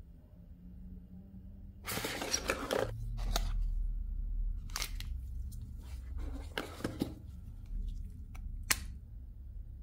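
Handling sounds of tablet packaging and accessories: short bursts of rustling and scraping from the cardboard box and its inserts, with a few sharp clicks, the last one near the end as a USB cable plug is pushed into the charger brick.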